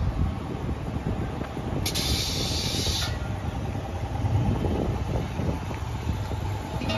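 Steady low rumble of idling engines in a drag-racing pit area, with a burst of air hiss lasting about a second, starting about two seconds in.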